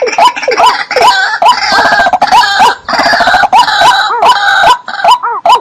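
Wetland birds calling: short, arched call notes repeated about twice a second, thickening into a dense overlapping chorus of calls through the middle, with many sharp clicks mixed in.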